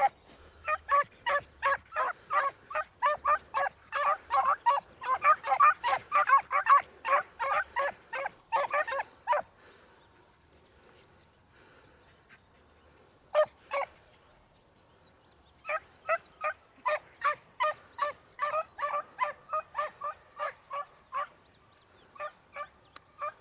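Beagles baying while running a rabbit: a rapid string of short bays, two or three a second. The bays break off about ten seconds in, with only a couple of calls in the gap, and pick up again about sixteen seconds in. Behind them runs a steady high-pitched insect drone.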